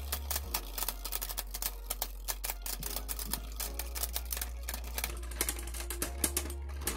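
Two Beyblade Burst tops, Big Bang Genesis and Geist Fafnir, spinning against each other in a plastic stadium, their edges clashing and scraping in rapid, irregular clicking. This is a close stamina battle, with both tops still spinning.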